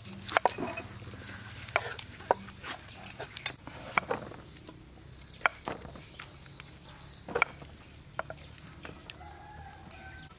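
Kitchen knife cutting eggplant on a wooden chopping board: irregular sharp knocks as the blade hits the board, roughly one to two seconds apart. Faint chicken clucks now and then in the background.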